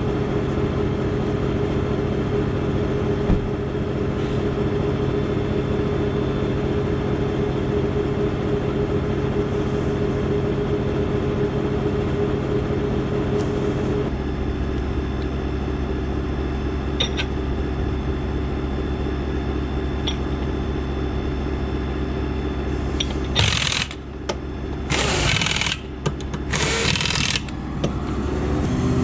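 A machine motor runs steadily, dropping to a deeper hum about halfway through. Near the end there are four short, loud bursts from a power tool, the kind used on the wheel during a combine tire change.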